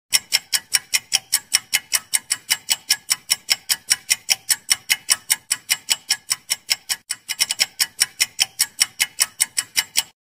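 Countdown-timer ticking sound effect: fast, even clock-like ticks, about five a second, with a brief hitch about seven seconds in, cutting off suddenly as the count reaches ten.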